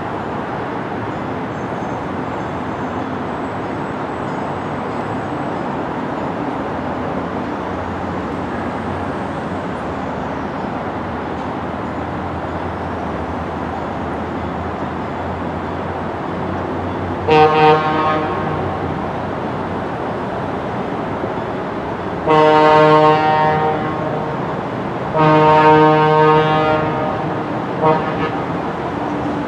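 Diesel locomotive's multi-chime air horn blowing the grade-crossing signal (two long blasts, a short one, and a final long one starting at the end), after one short toot about 17 seconds in. Before the horn there is a steady low rumble of the train.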